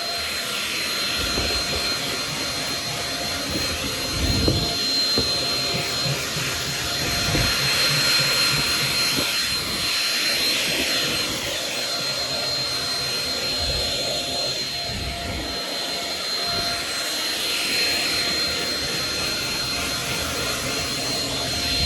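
Shark Rocket stick vacuum running steadily with a high whine while it is worked over carpeted stair treads and risers. A few low knocks come as the head bumps the steps, the loudest about four and a half seconds in.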